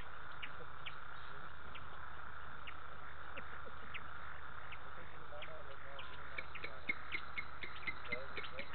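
Night chorus at a waterhole: a steady high drone of insects, with frogs calling in short chirps. After about six seconds the chirps quicken into a rapid run of about four a second, with a few low croaks mixed in.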